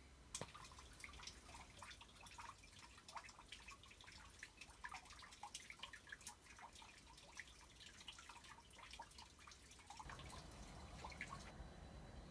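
Faint, irregular ticking of light raindrops, several a second. About ten seconds in, a low steady rumble comes up underneath.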